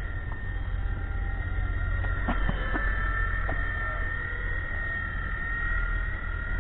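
WLtoys V911 micro RC helicopter in flight: a steady high motor and rotor whine with a second, lower whine beneath it, over a low rumble. A few sharp clicks come about two to three and a half seconds in.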